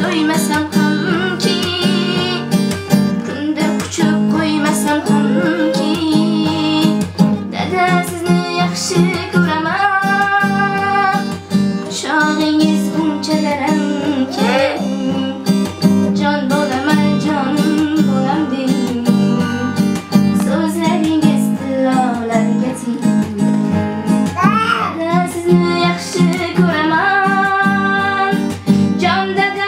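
A young woman singing while playing an acoustic guitar, her voice holding long notes with a slight waver over the guitar accompaniment.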